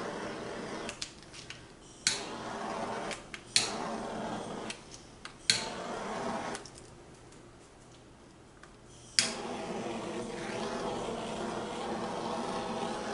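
Small handheld torch fired over wet acrylic paint in short bursts. Each burst starts with a sharp click and is followed by a steady hiss of flame lasting about a second, with a longer burn of several seconds near the end.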